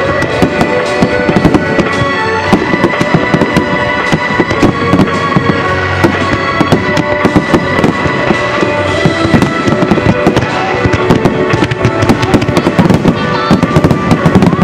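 Starmine fireworks barrage: aerial shells bursting in rapid, dense succession, a continuous run of bangs and crackles. Music plays underneath with steady held notes.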